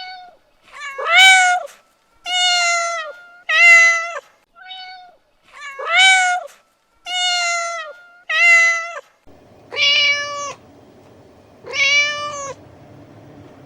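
Domestic cat meowing repeatedly: about ten separate meows, each rising then falling in pitch, with short pauses between them.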